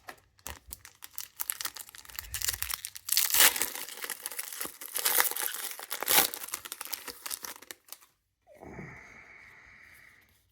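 A foil booster-pack wrapper being torn open and crumpled, crinkling and crackling irregularly for about eight seconds. Near the end a quieter, short sound drops in pitch and then holds steady.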